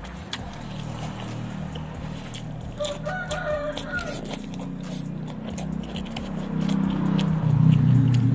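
A rooster crows once, about three seconds in, a pitched call lasting around a second, over scattered close clicks. A low rumble builds from about halfway and is the loudest sound by the end.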